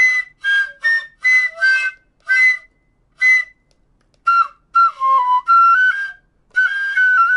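Susudake (smoke-darkened bamboo) shinobue, a Japanese transverse bamboo flute, being played: a string of short, separate, breathy high notes, then after a brief pause a connected phrase of stepping, somewhat lower notes.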